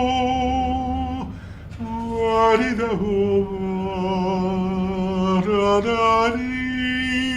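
A single voice singing unaccompanied: a slow song of long held notes with vibrato. There is a short break about a second in, then the line resumes and settles on a long sustained note near the end.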